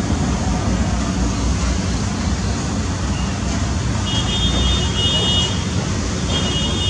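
Steady rumbling background noise, like road traffic. A thin, high, flat tone is held for over a second about four seconds in and comes again near the end.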